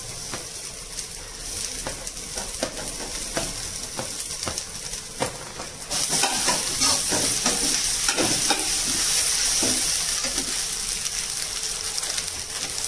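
Boiled, crumbled goat blood being scraped off a plate with a steel spatula into a kadai of onions frying in hot oil: sizzling, with the spatula scraping and clicking against plate and pan. The sizzle grows louder about halfway through, as the bulk of the blood lands in the pan and is stirred.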